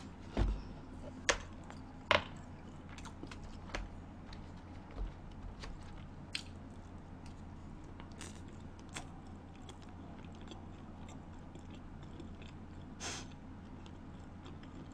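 A person chewing food close to the microphone, with a few sharp clicks from utensils in the first two seconds, then softer scattered ticks. A low steady hum runs underneath.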